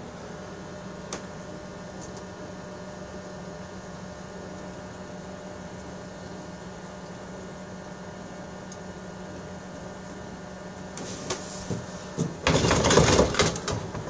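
Microwave oven running with a steady hum while heating a load of butane lighters. About eleven seconds in come a couple of sharp pops, then a loud crackling burst of about a second from the lighters inside.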